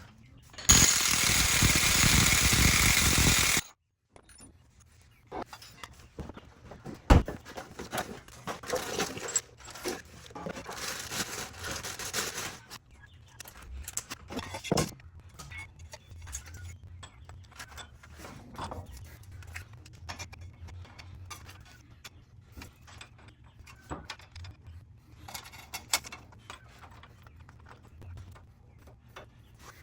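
A loud, steady rushing noise for about three seconds cuts off abruptly. Then come scattered clicks, clinks and knocks of hand tools on metal during work on a truck's exhaust.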